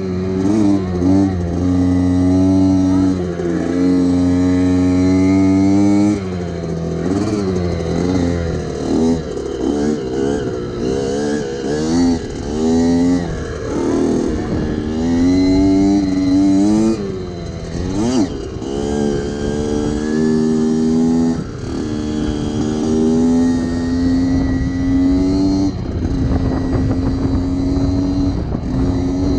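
Motorcycle engines running and revving, the pitch climbing and dropping again and again through the middle as throttle and gears change, steadier at the start and near the end; at times more than one engine is heard at once.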